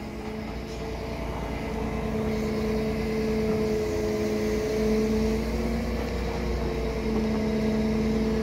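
Liebherr wheel loader's diesel engine running, a steady hum with a few held tones that shift slightly in pitch, growing a little louder as the loader moves its arm in to lift a concrete pipe off the trailer from the side.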